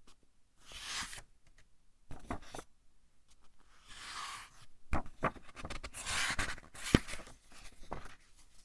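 Pages of a thick-papered book being turned by hand, several times: soft paper swishes with crisp crackles and flicks as each page lifts and falls, the sharpest snap about seven seconds in.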